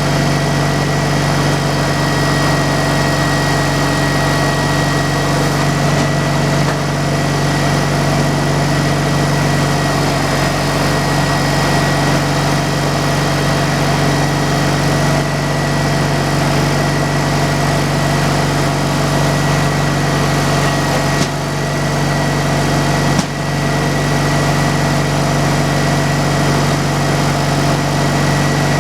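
An engine running steadily at a constant speed, with a thin high whine held over it. The sound dips briefly twice near the end, the second time with a small click.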